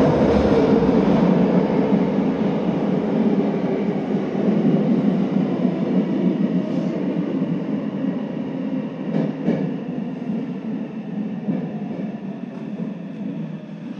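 Subway train running through a tunnel, heard from the front of the train: a steady rumble of wheels and motors that grows gradually quieter as the train slows, with a couple of sharp clicks a little after nine seconds in.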